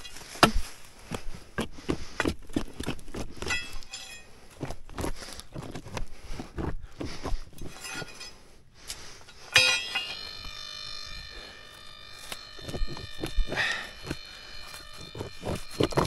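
Irregular knocks and scrapes, then a steady electronic tone of several fixed pitches that starts suddenly about ten seconds in and holds.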